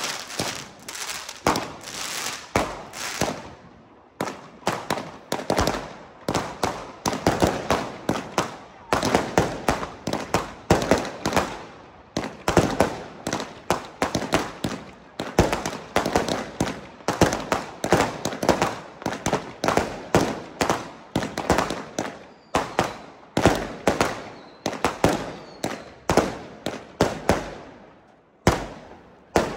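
A chain of budget consumer firework batteries fused together, firing a rapid run of shots about two to three a second as the comets launch and burst. There is crackling in the first few seconds, and two last separate bangs near the end.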